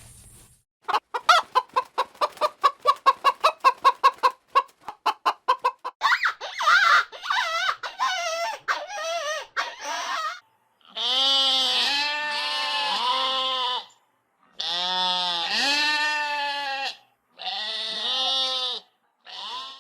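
Chickens clucking: a quick run of clucks, about four a second, then wavering cackles. These give way to three loud stretches of repeated pitched farm-animal calls.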